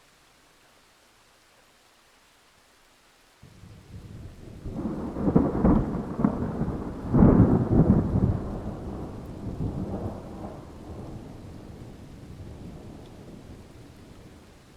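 Thunder over faint steady rain hiss: the rumble starts abruptly about three and a half seconds in, cracks loudest twice, then rolls away over several seconds.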